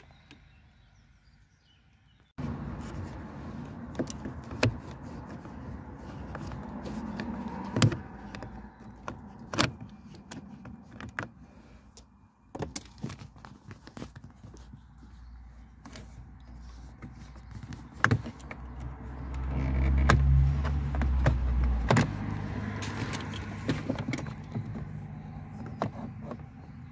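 Plastic trim clips clicking and snapping as a car's dashboard trim around the start/stop button is pried loose with plastic trim tools, over a steady low rumble. A louder low rumble swells up about twenty seconds in.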